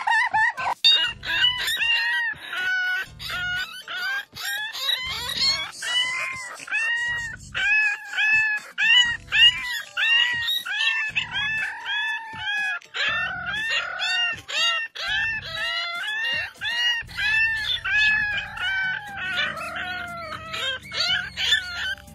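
A French bulldog puppy yapping over and over in short pitched calls that rise and fall, about two a second, over background music.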